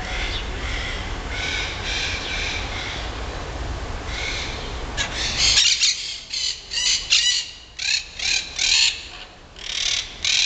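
Parakeets squawking: harsh, high calls, faint at first over a low rumble, then from about halfway through a loud run of about a dozen quick screeches.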